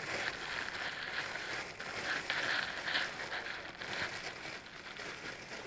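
Plastic packaging crinkling and rustling as squishy toys are handled and pulled from their bags, a continuous crackle with no pauses.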